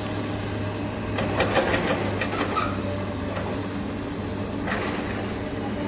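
Toy RC excavator's small electric motors and gearboxes whirring steadily, with a run of clicks and rattles between about one and three seconds in.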